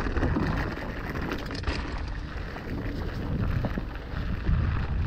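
Mountain bike rolling over a rough, stony trail: a steady rumble of the tyres with many small knocks and rattles from the bike, and wind buffeting the camera's microphone.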